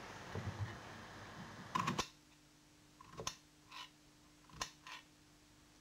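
A few sharp, light clicks and knocks of kitchen utensils being handled, spaced irregularly, over a faint steady hum; a soft hiss under the first two seconds cuts off suddenly.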